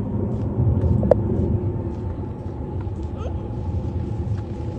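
Steady low rumble with a faint hum running through it, and a sharp click about a second in.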